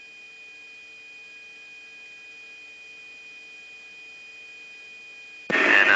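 Steady electrical hum with a few thin constant tones and faint hiss from a radio recording between transmissions. A radio voice cuts in abruptly near the end.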